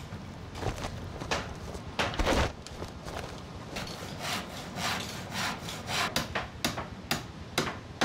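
Hand repair work on an old wooden raft: irregular hammer knocks on the planks and nails, mixed with rasping, scraping strokes against the wood.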